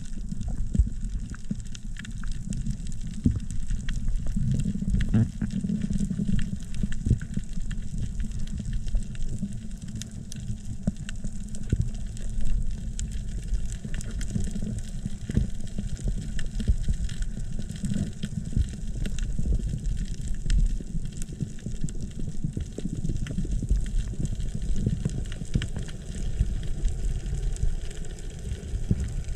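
Underwater sound picked up by a camera in its housing while swimming over a reef: a steady, muffled low rush of water with constant faint crackling clicks.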